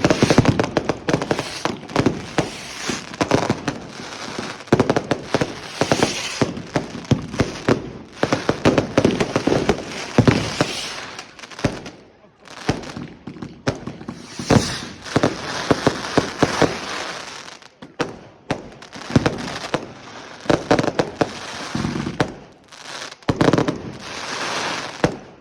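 Fireworks going off in rapid succession: a dense, continuous run of bangs and crackles, with short lulls about halfway through and again a little later.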